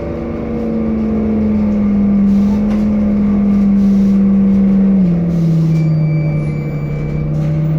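Temsa Avenue LF city bus with a DAF diesel and ZF Ecolife six-speed automatic running with a strong steady whine, the strange sound this bus is known for. The whine drops in pitch in one step about five seconds in.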